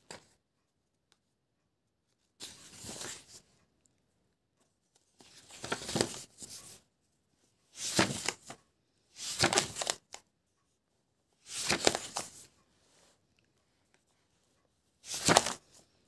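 Pages of a spiral-bound sketchbook being turned one after another, each turn a short papery rustle, about six in all with near silence between.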